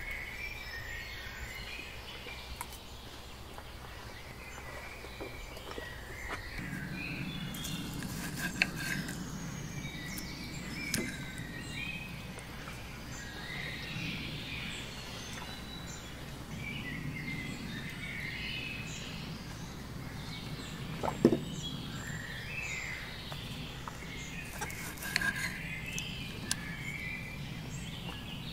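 Outdoor ambience of birds chirping and calling on and off over a steady low rumble, which grows louder a few seconds in. A single short knock sounds near the end.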